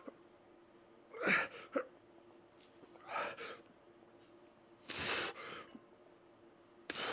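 A weightlifter's heavy, forceful breaths, one about every two seconds in time with his reps of skull crushers with a loaded EZ curl bar, the sound of straining under the load. A faint steady hum runs underneath.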